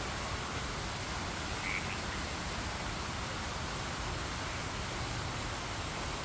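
Steady outdoor night ambience, an even hiss, with one brief faint call about two seconds in.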